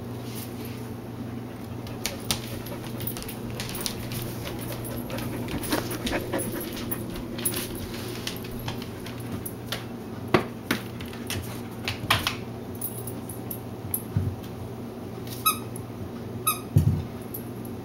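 Samoyed puppy nosing and pawing at a tennis ball on a tile floor: scattered sharp clicks and taps on the tiles, then two short, high-pitched whines near the end.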